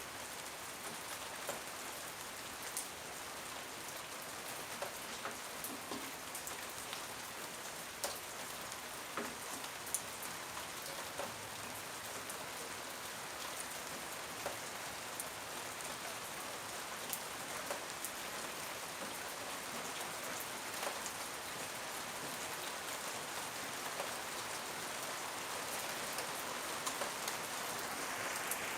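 Steady rain falling, with individual louder drops tapping now and then; it swells slightly toward the end.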